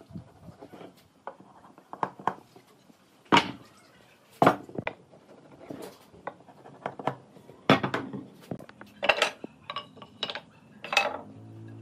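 Hand tools knocking and clinking as they are handled: irregular sharp strikes, a few of them ringing briefly.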